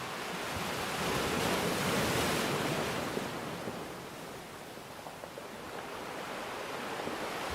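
Rushing water noise, even and hiss-like, that swells about a second in, eases off by the middle, and builds again near the end.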